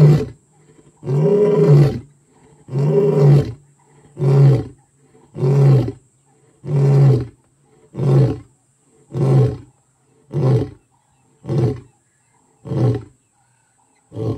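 Male lion's territorial roaring bout: two long full roars, then a run of shorter grunting roars about one a second, each briefer and quieter than the last, with a final grunt near the end.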